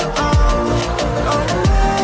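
Background electronic dance music: a beat of deep kick drums that drop in pitch, with ticking hi-hats under held synth notes.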